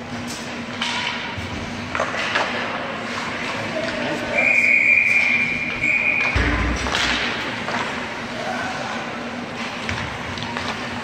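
A hockey referee's whistle blown in one long blast of about two seconds, about four seconds in, signalling a stoppage in play. Before it, sharp clacks of sticks and puck on the ice; just after it, a low thump.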